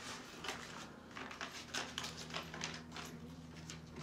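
Faint scattered rustling and light clicks of things being handled, over a steady low hum.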